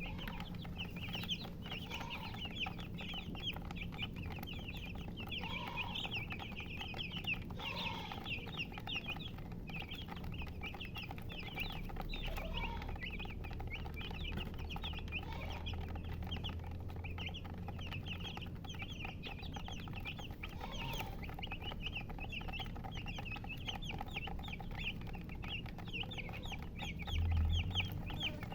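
A brood of chicks peeping without pause, many short high chirps overlapping, with a hen's lower clucks now and then. A steady low hum lies underneath.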